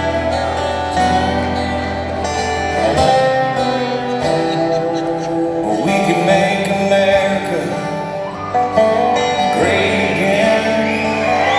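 Live acoustic guitars playing country music, with steady strummed chords and a few gliding notes.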